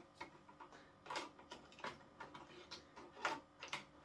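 A string of light plastic clicks and knocks, irregularly spaced, from a Bosch Tassimo pod machine being handled as its top lid is worked open and pressed shut.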